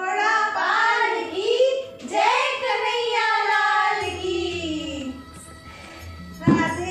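Several women singing a devotional song (bhajan) together and clapping along. The singing trails off about five seconds in, and a sharp strike sounds near the end.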